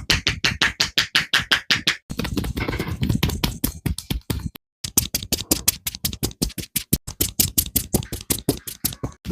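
Barber's hands slapping and tapping rapidly on a person's head in an Indian head massage, about seven strokes a second. Through the middle the strokes run faster and duller, and there is a brief pause about four and a half seconds in.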